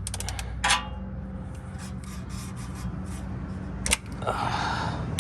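A ratchet wrench clicking and metal tools clinking as the 14 mm drain bolt on a transmission oil pan is worked loose. There is a sharp ringing metal knock just under a second in, another sharp click near the end, then a brief rasping scrape.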